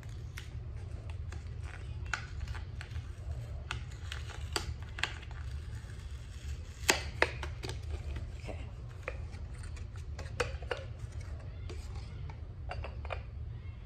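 Candle packaging being opened and a ceramic candle jar handled: scattered light clicks and knocks, with two sharper knocks about seven seconds in.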